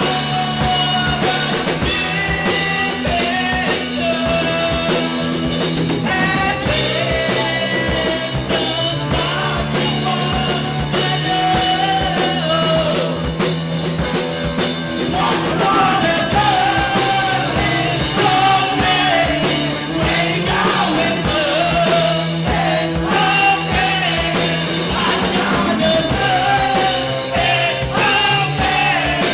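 Live rock band playing, with a lead vocalist singing into a microphone over drums, bass and guitar.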